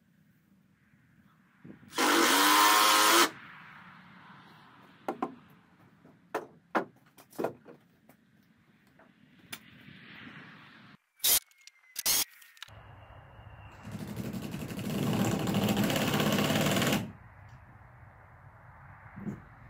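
Cordless drill driving screws into the wooden shed door: a run of about a second a couple of seconds in, then a longer run of about three seconds later on. Scattered knocks and clicks of handling the door and tools come in between.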